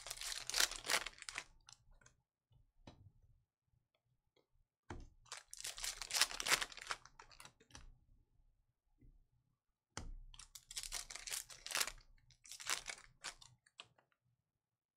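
Panini Contenders football card pack wrappers crinkled and torn open by hand, in three bursts of crackling a few seconds apart, as the cards are pulled out.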